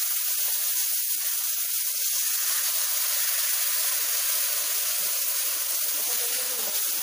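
Hot sugar syrup poured into ghee-roasted wheat flour in a kadhai, sizzling and hissing steadily as it hits the hot fat and flashes to steam while a ladle stirs it.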